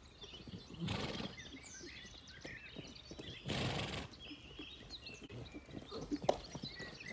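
Hoofbeats of a saddled horse cantering and then trotting on soft, muddy ground on the lunge, as many short dull thuds. Two short loud whooshes stand out, about a second in and about three and a half seconds in, and small birds chirp.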